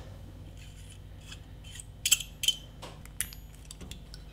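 Light clicks and taps of small metal airbrush parts and a pair of pliers being handled, the sharpest clicks coming about two to three seconds in.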